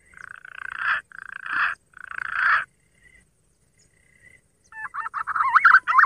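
Warbling whistled calls in the manner of a green pigeon (punai): three short swelling phrases close together, a pause of about two seconds, then a fast wavering trill that starts near the end.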